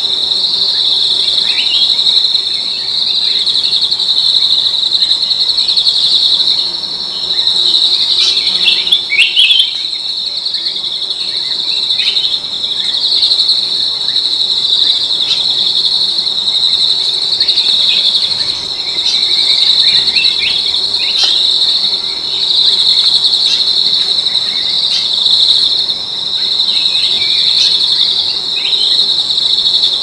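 Loud, steady, high-pitched drone of insects in the forest canopy, with many short, falling bird chirps scattered through it.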